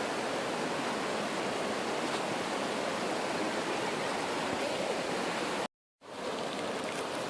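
Steady rushing of a stream or small waterfall, an even hiss of water, broken by a brief total dropout near the end.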